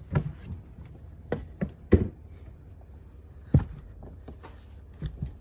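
Irregular knocks and thumps, about seven in all, spread over a few seconds with quiet between them; the sharpest come about two seconds in and again a little later.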